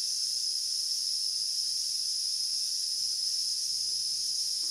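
The driver of an 80 W LED floodlight, its mains switch-mode power supply, singing with a steady high-pitched hissing whine. The owner takes the noise as a sign that the driver is on its way out.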